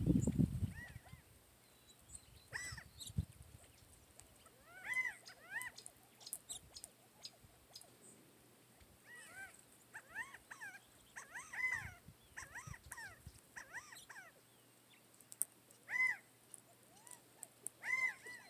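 Quail calling: short, arched, whistle-like notes repeated irregularly, sometimes in quick pairs, with faint high chirps of small birds. There is a brief low rumble at the start.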